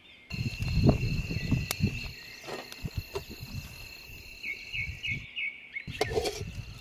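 Crickets trilling steadily in a high, continuous chirr, with a short run of quick chirps about two-thirds of the way in. Irregular low thumps and a few sharp clicks from handling the pots and metal ladle come through over it, the loudest about a second in.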